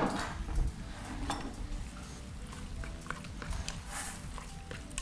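Spoon stirring risotto in a pot, with irregular light scrapes and clicks of the spoon against the pot and a sharp knock at the very start.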